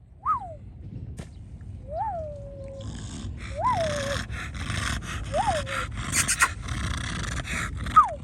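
A puppy whining: five short calls, each rising and then dropping in pitch, spaced a second and a half to two seconds apart, over a crackling background hiss.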